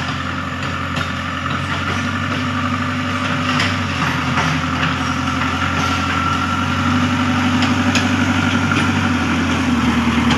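JCB backhoe loader's diesel engine running steadily, growing slightly louder toward the end, with a few faint clanks.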